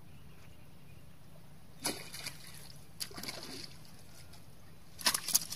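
Water splashing and sloshing at a lake's edge: brief splashes about two and three seconds in and a louder cluster near the end, over steady low background noise.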